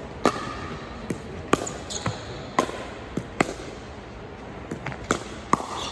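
Pickleball rally: sharp pops of paddles striking the plastic ball and the ball bouncing on the court, about a dozen in quick, uneven succession, with a short lull after about three and a half seconds.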